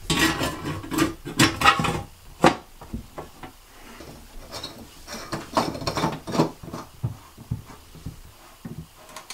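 Irregular clicks, knocks and scrapes of a metal vanity light bar being handled against a wall and globe bulbs being screwed into its sockets, busiest in the first couple of seconds and sparser after.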